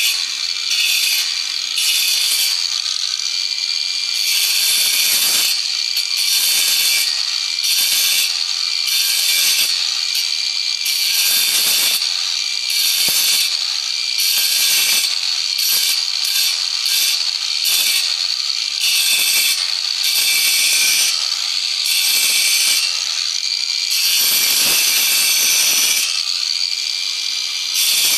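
Hand tool working wood in repeated scraping strokes, some short and some over a second long, with brief pauses between them.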